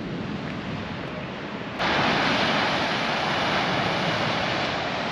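Steady rush of ocean surf with wind on the microphone; about two seconds in it jumps abruptly louder and hissier.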